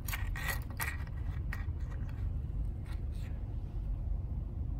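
Light plastic clicks and rattles from the jointed PLA segments of a 3D-printed articulated dinosaur toy as it is wiggled in the hand and set down on the table. The clicks are densest in the first second and a half and fade out by about three seconds in, over a steady low hum.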